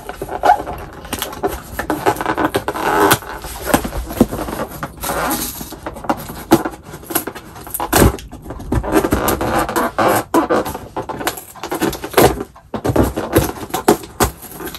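Fingernails picking and scraping at packing tape on a cardboard box while the box is handled, giving scratchy scrapes with irregular clicks and knocks, and a louder knock about eight seconds in.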